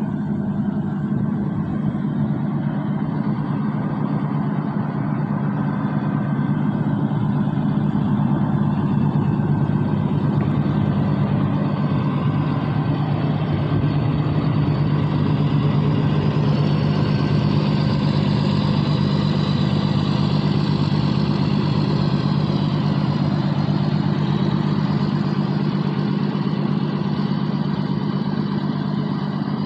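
Excavator's diesel engine running steadily, with a higher whine that rises and falls about halfway through.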